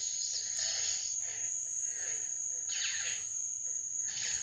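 Hasbro Darth Revan toy lightsaber's built-in speaker playing electronic saber sound effects: several short swooshing bursts over a steady high tone.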